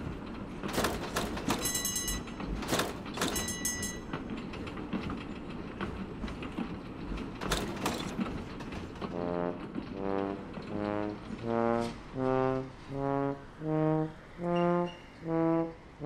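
Tram running on rails: a rumbling clatter with several sharp metallic clangs. About nine seconds in, a brass instrument takes over with a string of short honking notes, about one and a half a second, climbing slowly in pitch.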